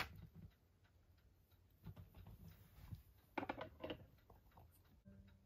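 Near silence: faint room tone with a few light clicks.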